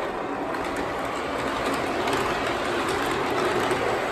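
MTH O-scale R62A model subway train running, a steady rolling rumble that grows gradually louder, with light clicks scattered through it.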